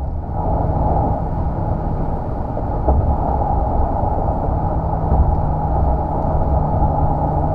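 Steady vehicle rumble with a constant low hum, running evenly without rising or falling in pitch.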